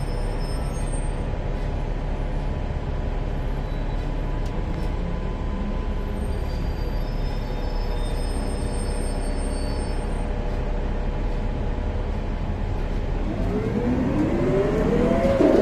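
Steady running and road rumble of a 2014 Gillig Low Floor BRT Plus CNG transit bus. In the last two seconds a whine rises in pitch and grows louder.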